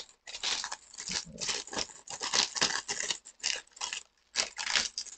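Clear plastic wrapping around a paperback book crinkling and tearing as hands pull it open, in quick, irregular rustles throughout.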